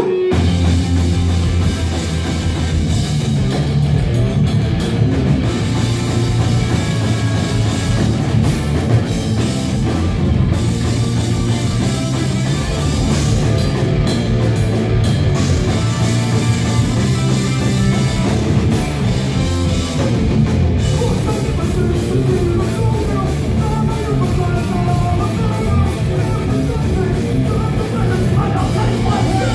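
A live rock band playing loud, with electric guitar and a drum kit over a heavy, steady low end, heard from within the crowd.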